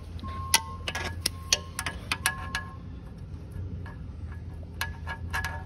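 Sharp metallic clinks of a hand tool against the turbocharger and engine metal as a fastener is worked loose. The clinks come at irregular intervals, some ringing briefly, clustered in the first three seconds and again near the end.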